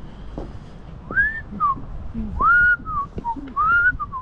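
A person whistling loudly close to the microphone: a run of swooping notes that each rise and then slide back down, with low thumps of handling noise underneath.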